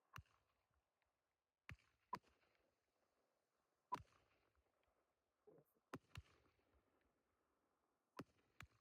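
Faint fireworks reports: about eight short, sharp pops at uneven intervals, a few in close pairs, each dying away quickly.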